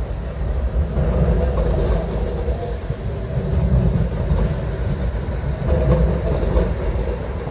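Tram running sound for an H0 model tram: a steady low rumble with motor hum and a faint high whine, getting louder about a second in as the long tram moves.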